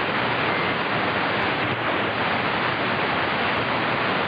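Radio receiver static: the steady hiss of an open CB skip channel with no station transmitting, between two contacts.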